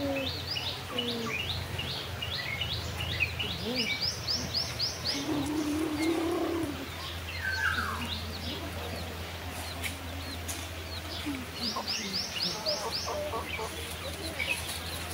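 Birds chirping in quick runs of short, falling notes, with chickens clucking lower down, over a steady low hum.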